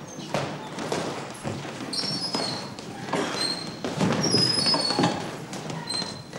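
Boxing gym training noise: irregular thuds of gloved punches with short, high squeaks of shoes on the floor.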